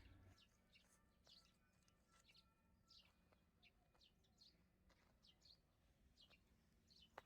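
Faint chirping of small birds: many short, high, downward-sliding chirps scattered irregularly throughout.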